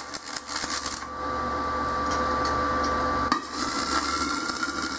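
Stick-welding arc crackling as a 6013 rod tack-welds broken cast iron, run DC electrode negative at about 20 amps. It sputters unevenly as the arc is struck, then runs as a steady crackle, with a sharp crack a little over three seconds in.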